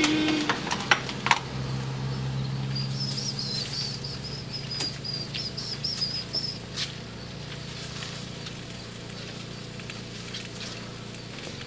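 A metal ladle clinking and scraping against an iron kadai of chicken, in a few sharp clicks near the start and scattered ones later, over a steady low hum. A bird chirps in a warbling run for a few seconds in the middle.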